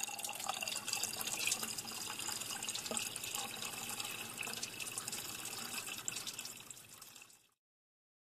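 Liquid pouring steadily with splashing and drips, fading down near the end and then cutting off.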